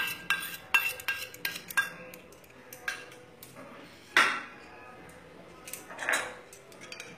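Metal spoon clinking and tapping against a pan, quickly and repeatedly for the first couple of seconds, then a few scattered clinks. There is a short scraping sound about four seconds in and a softer one about six seconds in.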